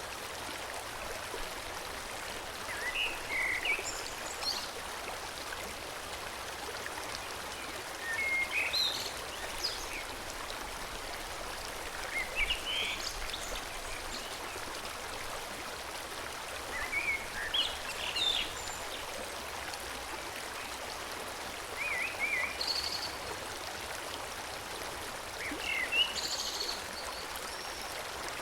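Forest stream flowing steadily, with a bird singing short high phrases every four to five seconds.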